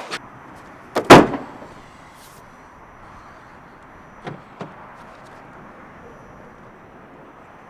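A door slams shut about a second in, then two faint knocks a few seconds later over a steady background hiss.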